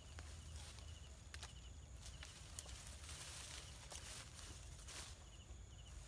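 Faint rustling and soft scattered clicks of someone moving about in brush, over a low steady rumble.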